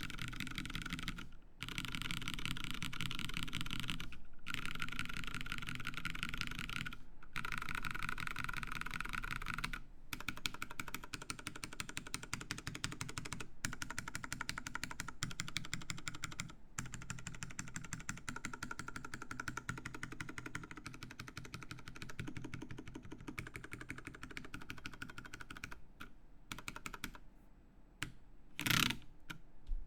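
Fast, continuous typing on a The60 mechanical keyboard with lubed Cherry MX Brown tactile switches in an aluminium plate with plate foam, broken by a few short pauses. The keystrokes thin out near the end, and one louder knock stands out shortly before the end.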